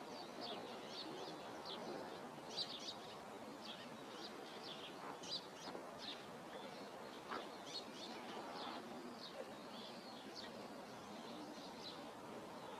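Small birds chirping: many short, high chirps in an irregular scatter, over a faint outdoor hiss.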